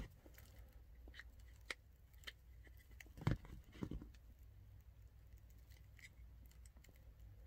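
Scattered sharp plastic clicks and knocks from a vehicle HVAC blend door actuator's housing being handled and its snap clips worked, the loudest a little past three seconds in with another just after.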